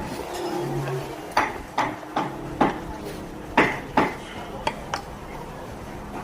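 Kitchen utensils and dishes clattering: about eight sharp, irregular knocks and clinks spread over a few seconds.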